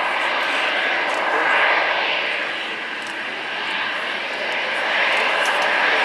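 Jet aircraft engines running: a loud, continuous rushing noise that swells and eases several times, with no pauses.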